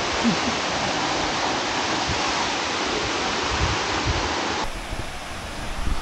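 Jeongbang Waterfall's falling water, a steady, dense rush of noise. About two-thirds of the way through it cuts off abruptly to a quieter, thinner hiss of water.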